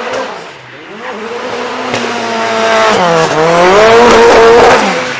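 Drift car's engine at high revs, its pitch wavering on the throttle, dipping about three seconds in and climbing again, over the hiss and squeal of spinning tyres. It grows louder to a peak near the end as the car comes past, then fades.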